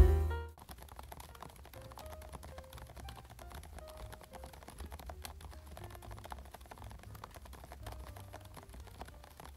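Typing on a Varmilo Minilo 75% mechanical keyboard fitted with Varmilo Prestige Silence switches: a quiet, steady run of quick, soft keystroke clicks. Music fades out in the first half second.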